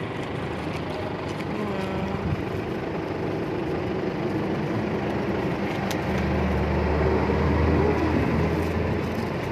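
Road traffic: motor vehicles running by, with one engine passing close and loudest about six to eight and a half seconds in.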